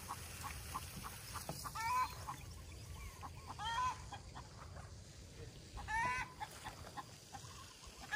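A chicken calling from time to time: a short squawking call repeated about every two seconds, with faint short clicks between calls.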